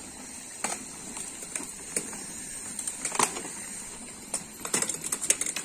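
Mountain bikes rolling over a wooden plank bridge: scattered knocks and clicks from the wheels on the loose planks, coming thick and fast near the end.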